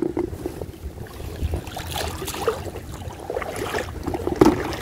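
Shallow seawater sloshing and splashing as someone wades through it and moves a landing net, with wind rumbling on the microphone. A couple of sharp knocks stand out, one about two seconds in and one near the end.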